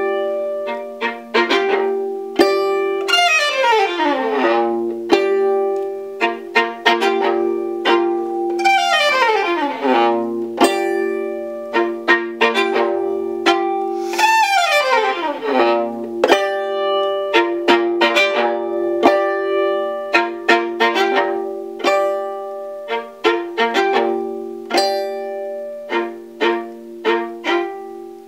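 Solo five-string violin playing a melody. Sustained notes ring under sharply started plucked and bowed notes, and three long slides fall in pitch.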